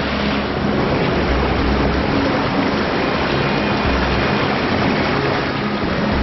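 Mountain stream rushing over rapids and rocks: a steady, loud rush of water.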